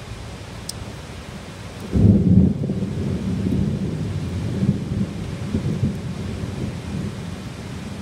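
Thunder during a heavy rainstorm: steady rain hiss, then about two seconds in a loud crack of thunder that rolls on as a low rumble, slowly fading.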